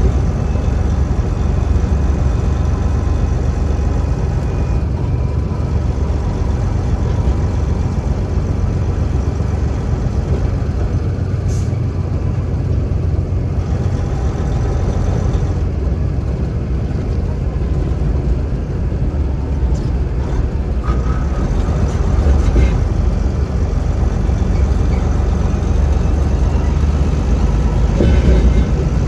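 Semi truck's diesel engine and road noise heard from inside the cab while driving, a steady low rumble.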